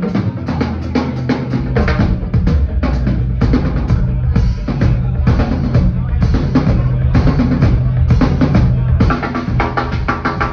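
Live drum kit solo: rapid, dense snare and bass drum strokes with cymbals, over steady low held notes.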